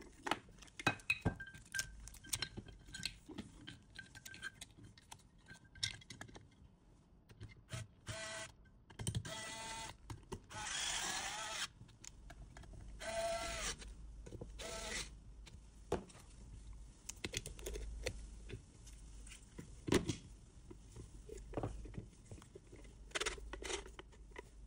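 Plastic camera-mounting parts being handled, with scattered light clicks and taps. In the middle come several longer scraping passes as screws are driven into the junction box cover with a hand screwdriver.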